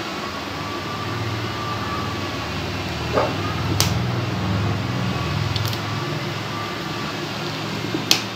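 Nail nippers snipping through a thick, curled toenail: three sharp clicks, about four seconds in, near six seconds and at the very end, over a steady low hum.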